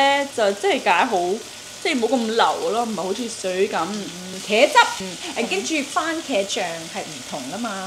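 Chicken pieces sizzling as they pan-fry, under two women talking in Cantonese; the talking is the loudest sound.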